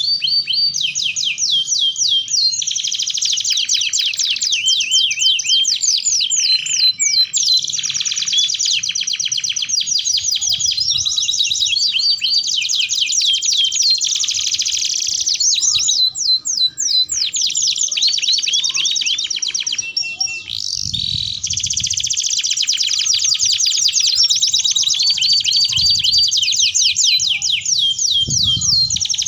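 Domestic canary singing a long, continuous song in full voice: fast, rapidly repeated trills and rolling phrases, barely pausing. The song thins briefly twice before picking up again.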